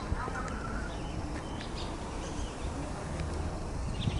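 A few short, high bird chirps and a brief wavering call near the start, over a steady low rumble of outdoor background noise.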